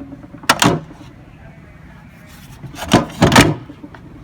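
Knocks and clatter of hard objects being handled: a couple of sharp knocks about half a second in, then a louder cluster of knocks around three seconds in.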